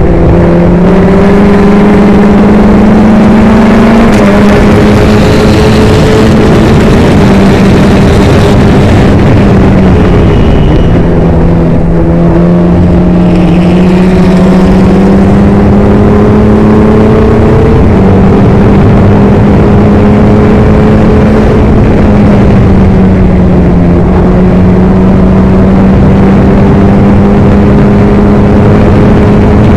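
Onboard sound of a Formula Ford's Ford Kent 1600 crossflow four-cylinder engine running hard at racing speed, very loud. Its note holds high, drops sharply about ten seconds in and climbs again, with smaller dips later.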